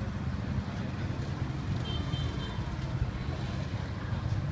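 Steady low rumble of street traffic, with a faint brief high double tone about two seconds in.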